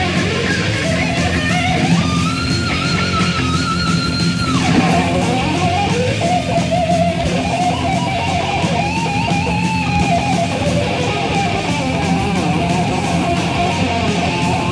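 Thrash metal demo recording in an instrumental passage: distorted electric guitars and bass with no vocals. A lead guitar line of held, bending notes plays over the rhythm.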